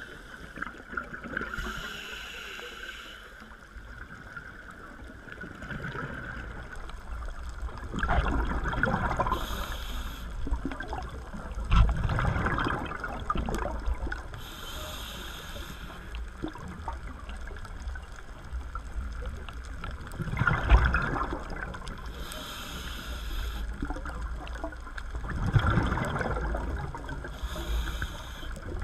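Scuba diver breathing through a regulator underwater: each inhale is a short high hiss, each exhale a loud bubbling gurgle, a breath every several seconds over a low steady underwater wash.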